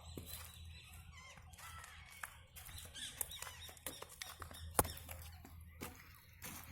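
Small birds chirping now and then in short high calls, with scattered clicks and one sharp click a little before five seconds in, over a steady low hum.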